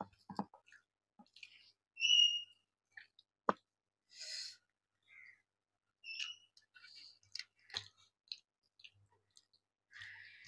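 Wet mouth clicks and chewing while eating rice and fish curry. About two seconds in comes one short, steady, high whistle-like chirp, the loudest sound here.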